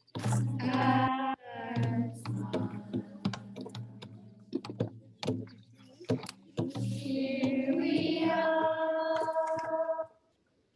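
Voices and brief singing, one of them holding a long sung or called note for about three seconds near the end, over scattered sharp clicks.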